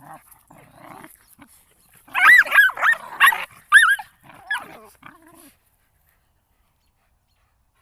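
Dogs fighting: snarling and scuffling, with loud high yelps and cries of pain from one dog, densest around the middle; the sound cuts off abruptly after about five and a half seconds.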